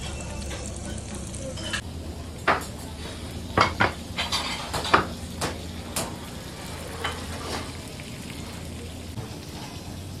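A hot clay baking dish of seafood sizzling, with a run of sharp clinks and knocks from the dish and metal utensils between about two and eight seconds in.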